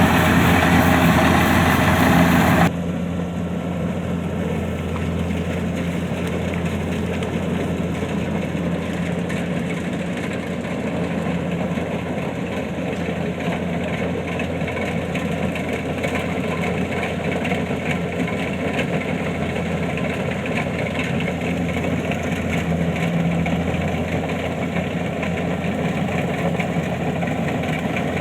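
Kubota DC-70 combine harvester's diesel engine running steadily with a low drone as it harvests rice. About three seconds in, the sound drops abruptly in loudness and loses its hiss, then carries on unchanged.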